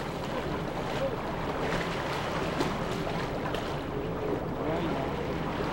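Water splashing and sloshing against a canoe hull as a young orca surfaces and rolls alongside, with wind buffeting the microphone.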